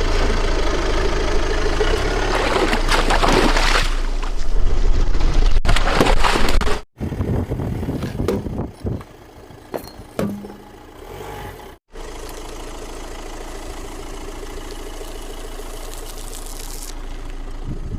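Car engine running and idling across a few short cut clips, with scattered crackling and snapping in the middle clip as objects are crushed under the tyres.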